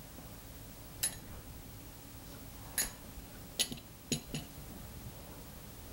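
About five scattered light clicks and taps as a small knife trims soft fondant against a craft mat and the hand handles the tool, over a quiet room.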